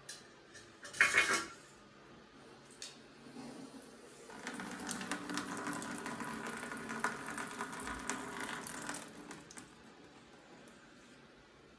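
A short, loud clatter about a second in, then a bathroom tap running into the washbasin and down its drain for about five seconds before it is turned off.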